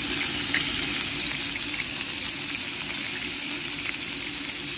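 Chapli kebabs (spiced ground-meat patties) sizzling as they fry in a shallow film of oil in a pan: a steady hiss with occasional small crackles.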